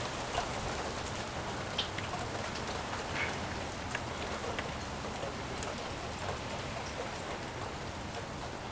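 Steady rain falling, with scattered single drops clicking close by.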